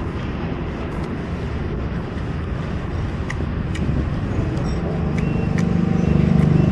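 Steady low rumble of street traffic, with an engine passing close that grows louder about five seconds in and peaks near the end. A few faint clicks sound over it.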